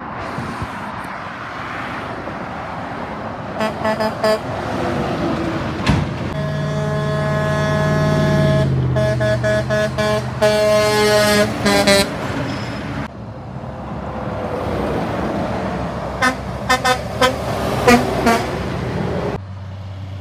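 Mack dump truck passing with its diesel engine drone, sounding its air horn in a long blast from about six to twelve seconds in. Short horn toots come a little before it, and a string of short toots follows near the end.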